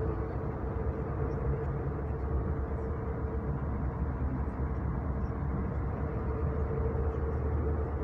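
Steady road and engine noise of a moving car heard from inside its cabin, mostly low and even, with a faint steady hum running through it.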